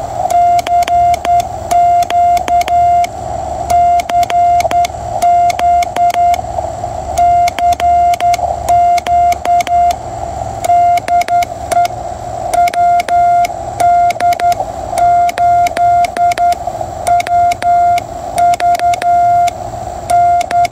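QRP Labs QCX CW transceiver's sidetone: a steady tone near 700 Hz keyed on and off in Morse code, with a front-panel push button standing in for a key. Narrow receiver hiss around the same pitch fills the gaps between dots and dashes, and a click marks the start and end of each element.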